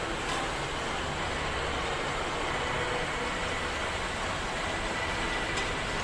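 Steady mechanical running noise of workshop machinery, an even drone without breaks.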